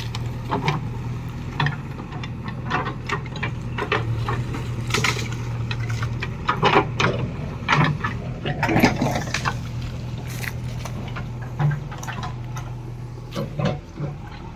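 A diesel engine running steadily under repeated knocks, clatters and scrapes, typical of a loader bucket working a pit of cow-dung manure.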